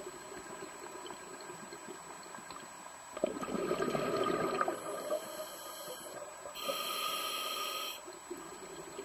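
A scuba diver breathing through a regulator underwater. About a third of the way in comes a rush of exhaled bubbles lasting about a second and a half; near the end comes a hissing inhalation through the regulator lasting over a second.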